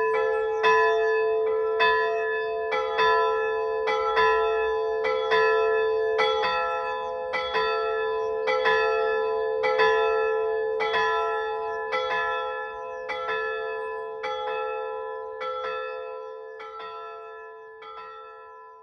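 Church bells chiming, struck about once a second with each strike's ringing overlapping the next, growing steadily fainter toward the end.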